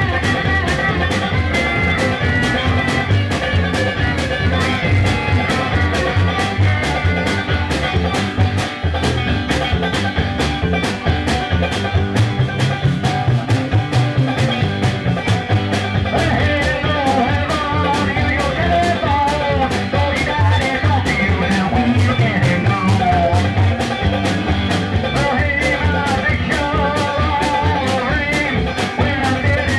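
Live band playing a fast, driving number on upright bass, electric guitar and drums, with a quick, steady beat. A wavering lead line comes in over the second half.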